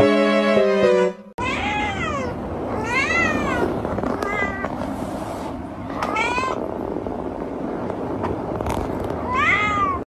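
A cat meowing: about five separate drawn-out meows, each rising then falling in pitch, over a steady hiss. Piano music plays for about the first second and a half, then stops before the meows begin.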